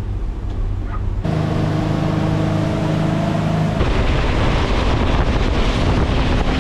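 A speedboat's engine running under way, with wind buffeting the microphone and water rushing past the hull. The engine hum shifts abruptly about a second in, and the wind and water noise grows louder near four seconds in.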